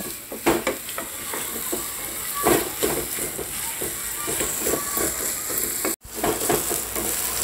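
Minced mutton sizzling as it is fried in a nonstick pan over a medium gas flame, with a wooden spatula scraping and turning it in irregular strokes. This is the bhuno stage, where the keema is fried down thoroughly. The sound cuts out briefly about six seconds in.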